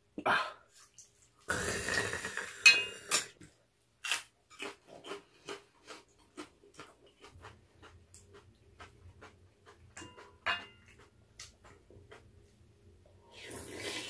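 A ladle clicking and scraping against a pot as noodles and stew are stirred, with a light tap about every half second. Noodles are slurped near the end.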